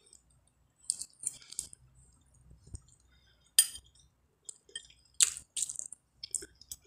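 Close-up mouth sounds of eating spaghetti: short wet lip smacks and slurps while chewing, a few at a time with gaps between.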